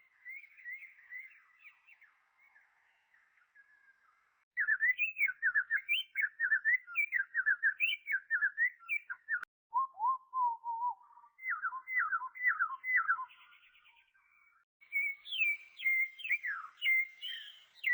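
A songbird singing: phrases of quick, varied chirping and whistled notes separated by short pauses, faint at first and louder from about four and a half seconds in.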